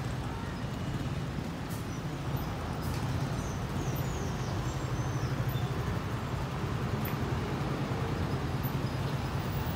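Steady road traffic noise with a constant low engine hum.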